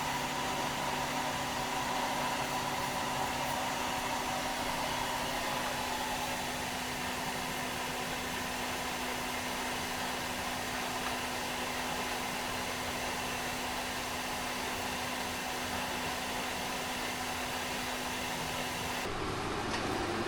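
A small electric blower or fan running: a steady whirring hiss with a constant low hum. The sound changes abruptly about a second before the end.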